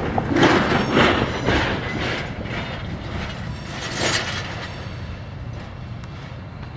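Freight train tank cars rolling past, their wheels rumbling on the rails, with several short, sharper bursts of wheel noise in the first two seconds and again about four seconds in.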